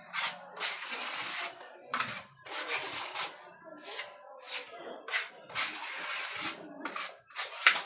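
Repeated rough scraping strokes, some long and some short, at an uneven pace, like a tool or abrasive being worked by hand over a hard surface.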